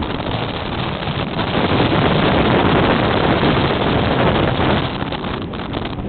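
Strong wind buffeting the microphone: a loud, unbroken rushing rumble that swells in gusts, strongest through the middle and easing a little near the end.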